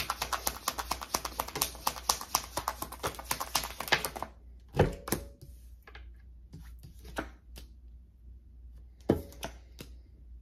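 Tarot cards being shuffled by hand: a fast run of crisp card clicks for about four seconds. Then come a few separate taps and knocks as the cards are handled and laid down.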